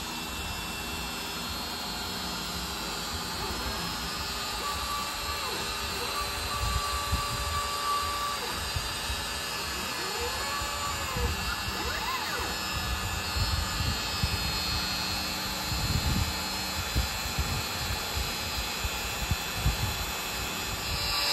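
Hobby CNC router carving a small test pattern in wood on a shallow, slow pass: the Bosch trim-router spindle runs with a steady whine while the stepper motors move the gantry, their pitch gliding up and down as the axes speed up and slow down.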